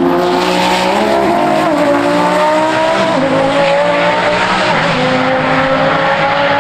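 A race car engine running hard at high revs. Its engine note climbs and then steps back down several times, about every second and a half, over a dense, steady noise.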